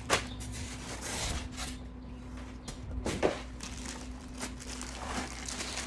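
Fan parts and packaging being handled: a few knocks and rubbing sounds, the clearest knock about three seconds in, over a faint steady hum.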